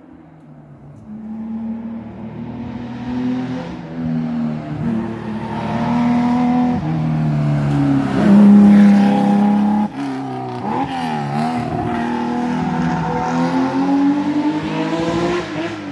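Rally car at full throttle on a special stage, engine revving up through several gear changes as it draws closer, loudest about eight seconds in. Near ten seconds the throttle is briefly lifted and the engine note drops and wavers, then it revs up again toward the end.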